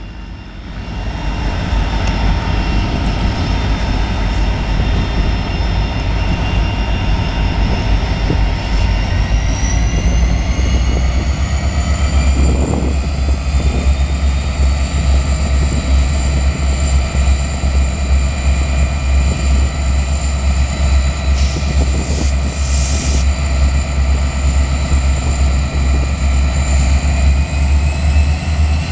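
Wheeling & Lake Erie diesel-electric locomotive engine running with a loud, steady low drone. Its whine climbs in pitch about eight seconds in and then holds as the engine throttles up to start the train moving.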